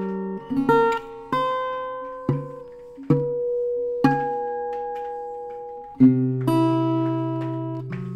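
Steel-string Stauffer-style acoustic guitar with a spruce top and rosewood back and sides, fingerpicked slowly in a free improvisation. Single plucked notes and small chords are each left to ring out and fade, with a fuller, louder low chord about six seconds in.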